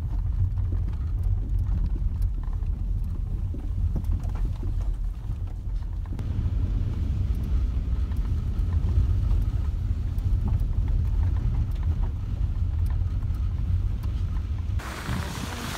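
A vehicle driving slowly over a rough dirt track, heard from inside the cab: a steady low rumble of engine and tyres. Near the end a hiss of wind noise comes in over the rumble.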